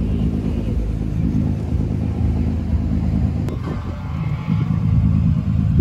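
Tour boat's engine running underway, a steady low rumble. A single sharp click comes about halfway through.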